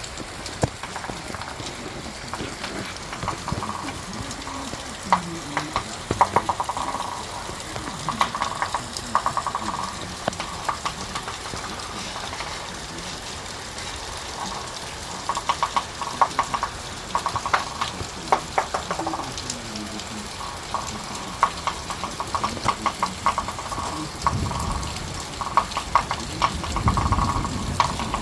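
Heavy rain falling in a thunderstorm, a steady hiss with bursts of rapid clicking drops. A low rumble comes in near the end.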